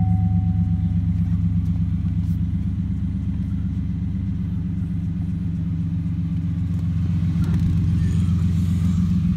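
Chevrolet pickup's V6 engine idling steadily, freshly started. A single high steady tone fades out in the first second.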